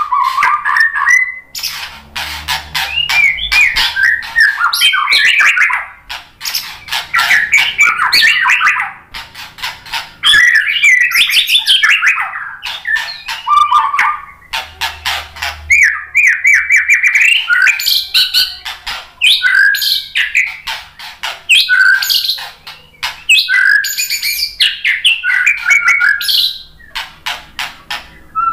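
White-rumped shama (murai batu) singing a loud, varied song. Fast chattering and rattling runs alternate with whistled phrases, with brief pauses between phrases. The song is full of mimicked 'isian' material.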